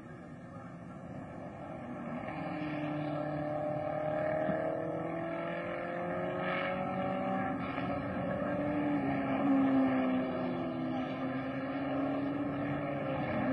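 A 1960s open-wheel racing car's engine running hard, its pitch sliding up and down as it takes corners and changes gear. It grows louder over the first few seconds.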